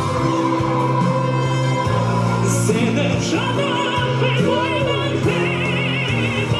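A male singer performs a ballad live over band and orchestral backing. From about three and a half seconds in he holds high notes with a wide vibrato.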